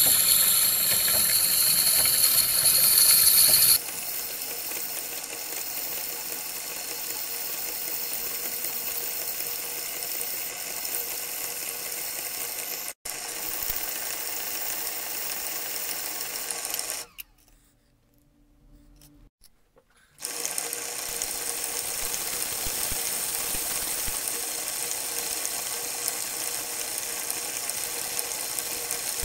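Small motor-driven grinding spindle running steadily while a watch glass is ground against a metal plate. The grinding is louder and hissier for the first few seconds, then settles to a steadier running sound with a constant hum. It drops to near silence for about three seconds, about two-thirds of the way through.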